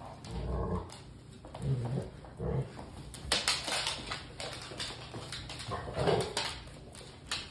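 Pit bull dogs at play: short low growls, four or five of them, with claws clicking on a hardwood floor in between.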